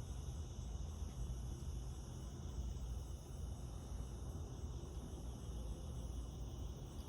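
Steady, high chorus of crickets or other singing insects, unbroken throughout, over a low rumble.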